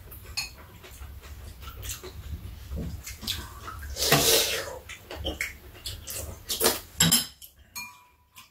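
Metal spoons and chopsticks clinking against ceramic bowls and a metal serving tray during a meal, with eating noises, loudest about four seconds in.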